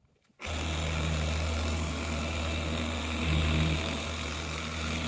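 Corded electric orbital polisher with a foam pad running steadily as it buffs a truck's paint, starting about half a second in, with a brief rise in level a little after three seconds.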